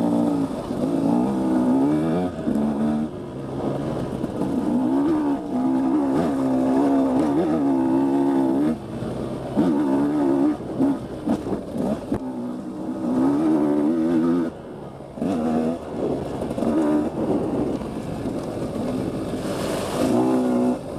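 Dirt bike engine pulling up a trail climb in second gear, the revs rising and falling as the throttle is rolled on and off. A Rekluse Core automatic clutch is fitted, so there is no clutch work.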